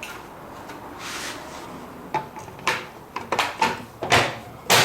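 Hard plastic clicks and knocks, about half a dozen uneven ones, sparse at first and bunched together later, the loudest near the end: the washing machine's plastic bottom panel being handled and fitted back into place.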